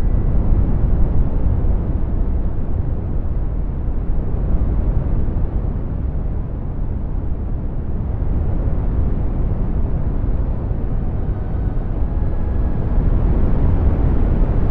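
Synthesized brown noise: a steady, deep hiss weighted heavily toward the low end, slowly swelling and easing in level.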